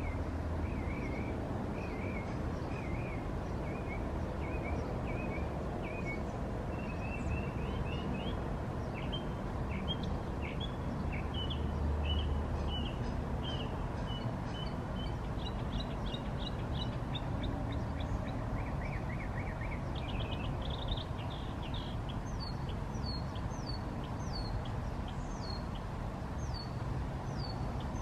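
Small birds chirping and singing. The runs of short notes quicken into rapid trills in the middle, and near the end comes a string of sharp falling notes, all over a steady low background rumble.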